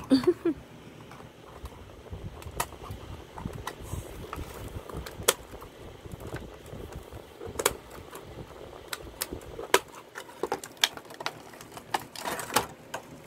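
Toy packaging being cut open and handled: scattered sharp snips and clicks of scissors through cardboard and plastic, with a denser crinkling of plastic wrap near the end.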